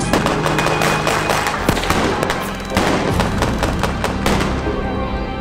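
Gunfire from a staged battle, many rapid pops and cracks one after another, over background music.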